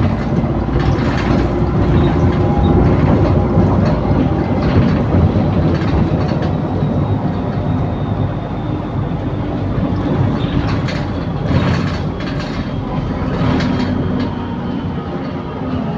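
Interior of an Optare Solo SR bus with a Voith gearbox on the move: steady engine, drivetrain and road noise, with the body rattling and knocking now and then and a faint thin whine over it. The bus is a known rattler.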